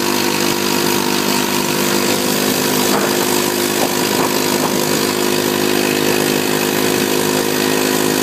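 ATV engine running at a steady speed, a constant multi-toned hum with a noisy rush over it.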